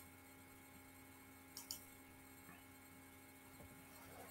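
Near silence: room tone with a faint steady hum and a pair of faint clicks about one and a half seconds in.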